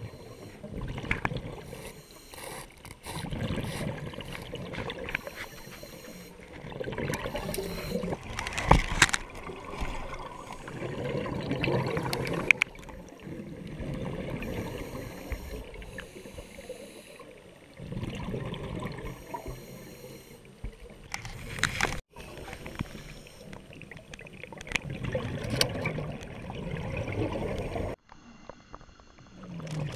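Sea water noise that swells and fades, with a few sharp knocks. It cuts off abruptly twice in the last third.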